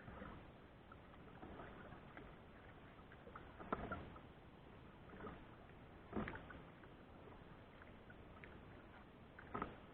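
Kayak paddle strokes in the water: faint dips and splashes about every two to three seconds over quiet water.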